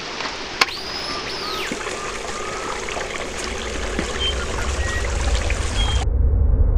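Jungle stream running over rocks, a steady trickling wash of water, with a few short high whistles over it. About six seconds in the high end drops away and a low rumble swells.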